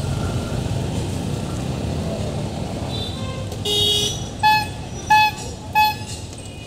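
Steady street-traffic rumble with vehicle horns. About halfway through one horn sounds briefly, then three quick short toots follow, a little over half a second apart.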